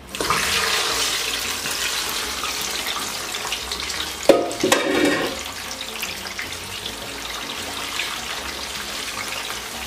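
Sliced plantains sizzling in hot vegetable oil: the frying starts suddenly as they go in and runs on steadily, easing a little. A sharp knock a little over four seconds in.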